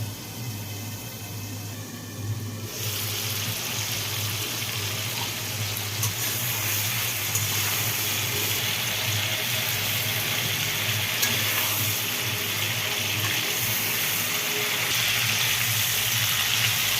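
Food frying in hot oil in a pan: a sizzle that starts suddenly about three seconds in and then runs steadily.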